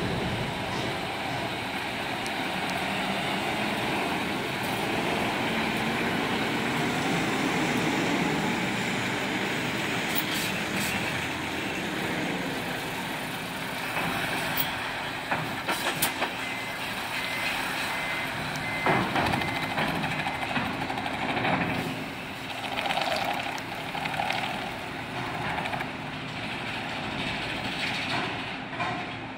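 Mitsubishi Fuso Super Great heavy truck's diesel engine running as the truck creeps across the pier and up the ramp into a ferry. A few short sharp hisses or clunks come around the middle, and a run of electronic beeps sounds for several seconds just past halfway.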